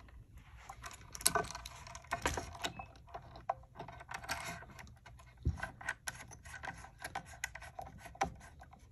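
Hands plugging a power cable's connector into a Garmin LiveScope black box and screwing its threaded collar down by hand: rubbing and scraping with scattered small clicks, and a knock about five and a half seconds in.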